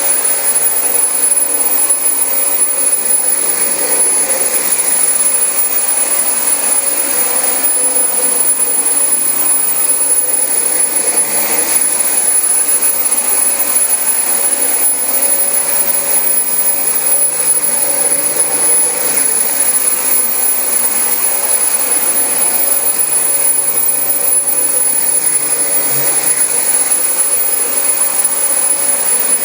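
Dyson DC25 upright vacuum cleaner running steadily while vacuuming carpet: an unbroken rush of air with a constant high whine from the motor.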